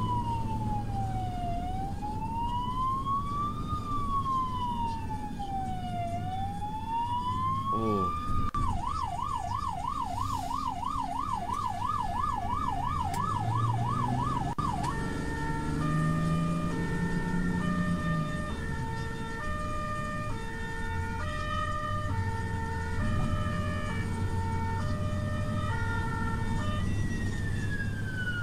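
Ambulance siren heard from on board over engine and road noise: a slow wail rising and falling about every four and a half seconds, switching about eight seconds in to a fast yelp of roughly four cycles a second, then about fifteen seconds in to an alternating two-tone pattern, before a falling wail glide returns near the end.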